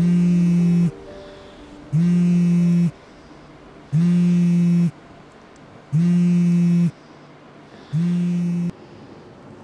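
Mobile phone vibrating with an incoming call: five steady buzzes, each about a second long, coming every two seconds, over faint soft background music.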